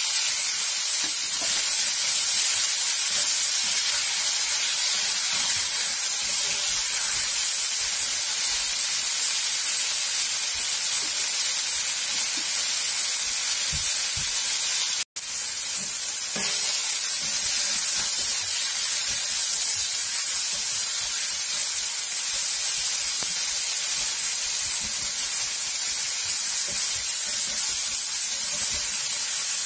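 Tomatoes, onions and ginger sizzling steadily in hot oil in a wok, with occasional soft stirring from a silicone spatula. The sizzle breaks off for an instant about halfway through.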